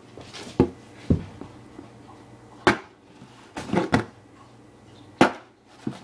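A knife slitting open a taped cardboard box: a series of about six sharp scratches and knocks of the blade and cardboard.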